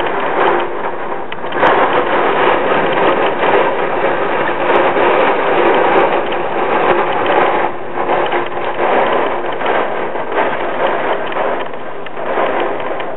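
Wind-driven hurricane rain beating against a window, a loud, dense, steady rattle that eases briefly about eight seconds in.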